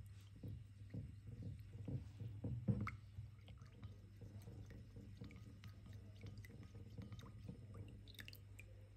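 Spoon stirring a cornstarch-and-milk slurry in a ceramic bowl: soft repeated knocks and wet scrapes against the bowl, busier in the first three seconds and lighter afterwards.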